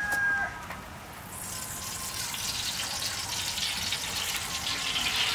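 Cooking oil poured in a thin stream from a clay jug into a large heated aluminium pot: a steady pouring hiss that builds from about a second in. A brief steady tone sounds at the very start.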